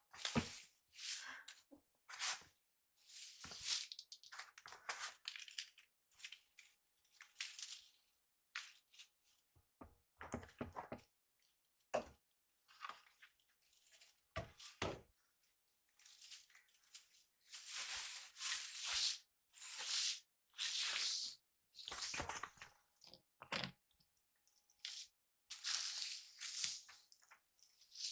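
Straw broom swishing across the floor in repeated, irregular sweeping strokes, with a few short knocks between them.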